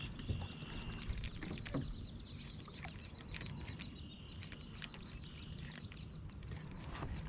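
Quiet outdoor ambience over calm water: faint bird calls, scattered light ticks and taps, and a low steady rumble of wind on the microphone.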